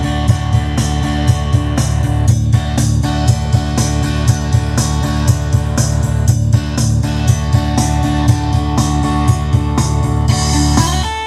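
Yamaha PSR-S750 arranger keyboard playing a hard-rock auto-accompaniment style through its built-in speakers, a steady drum beat under electric guitar, breaking off near the end. It is playing after a repair of its audio circuit, which unstable voltage from a diesel generator had damaged and left noisy.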